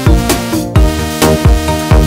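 Background music with a steady beat of deep drum hits under sustained melodic tones.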